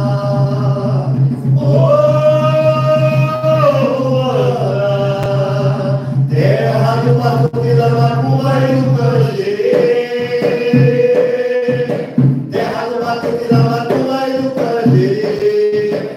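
Voices singing an Umbanda ponto de Preto Velho, a devotional chant, in long held notes that step from one pitch to another every few seconds.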